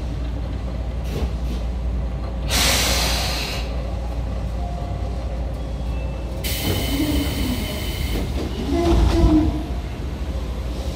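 Tobu 9000 series train running through a subway tunnel, heard from inside the car: a steady low rumble of wheels and motors, with a brief hiss about two and a half seconds in and a longer, louder hiss with a high ringing tone from about six and a half seconds in.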